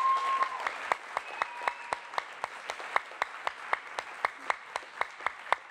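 Audience applauding, settling into steady claps at about four a second that slowly fade.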